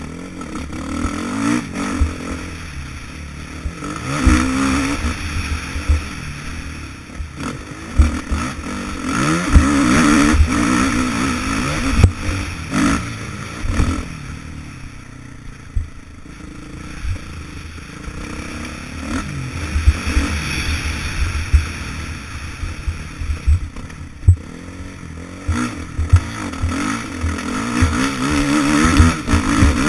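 Suzuki motocross bike's engine revving up and falling off again and again at riding speed, heard from a helmet-mounted camera. Frequent low thumps and clatter run underneath.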